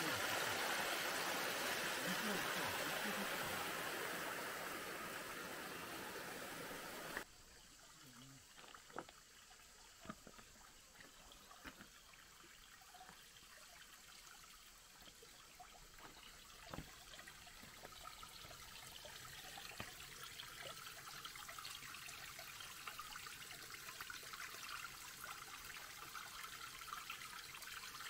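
Running water of a shallow forest stream, first loud and even, then suddenly much fainter about seven seconds in. After that a quieter trickle with scattered light clicks and knocks, the water slowly growing louder towards the end.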